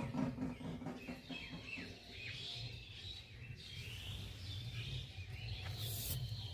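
Small birds chirping outdoors, a string of short, quick downward chirps, over a faint steady low hum.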